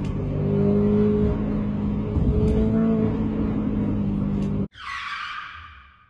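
Car engine running hard at speed, its pitch slowly rising, then cutting off abruptly near the end. A high-pitched squeal follows and fades out within about a second.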